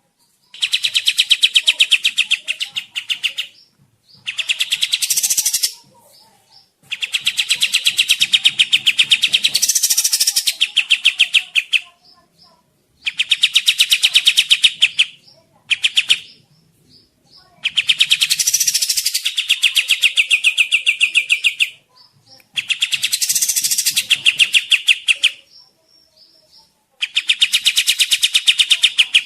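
Kapas tembak bird singing loud runs of fast, rapidly repeated chattering notes, each run lasting a few seconds with short pauses between, about eight runs in all.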